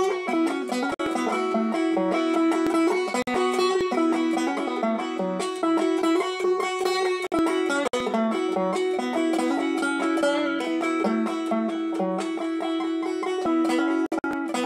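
Five-string resonator banjo fingerpicked with picks, a fast continuous stream of plucked notes over a steady repeated drone note.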